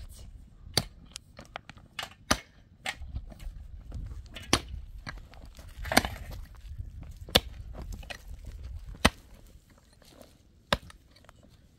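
A pickaxe striking hard, stony ground, about eight sharp clinks spaced a second or two apart, with soil and stones crunching between blows.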